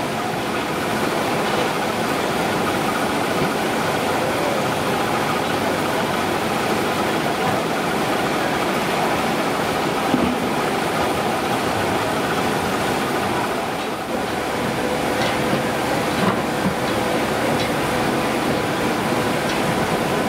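Rows of jute yarn winding machines running: a steady, dense mechanical clatter with a few faint ticks.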